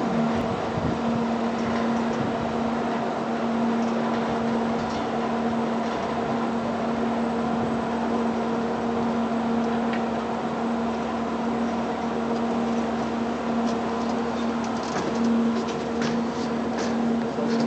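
Steady mechanical hum with a constant low drone, from cable car station machinery. A few short clicks near the end.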